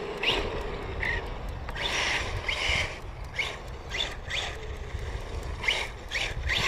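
Kyosho MP10e electric 1/8 buggy running a slalom, its motor giving short rising whines again and again as it accelerates and brakes between the cones, over a low rumble.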